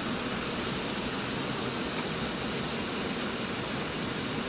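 Air-conditioning equipment running: a steady, even rush of air noise with no distinct clicks or changes.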